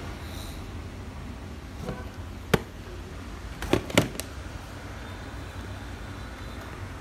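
A handful of sharp plastic clicks and knocks from handling an industrial teaching pendant, over a steady low hum.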